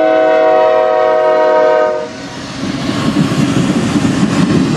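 CSX freight locomotive's air horn sounding one long chord of several notes, cutting off about two seconds in. After it comes the steady rumble of the freight cars' wheels rolling past on the rails.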